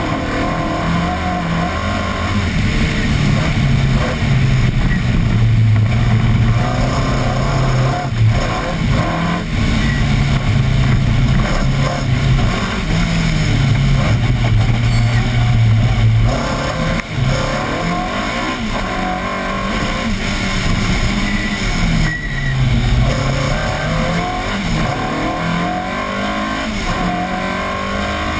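Rally car engine at full throttle, revving hard up through the gears and dropping on each gear change and each lift for a corner, so its pitch climbs and falls again and again.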